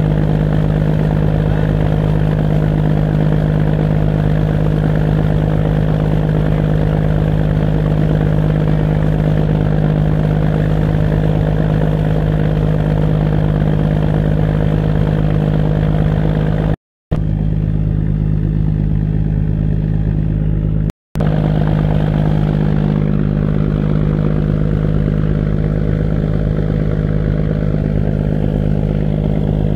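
A fishing boat's engine running with a steady, unchanging drone under load while towing a capsized boat on a rope. The sound cuts out completely twice for a fraction of a second a little after the middle.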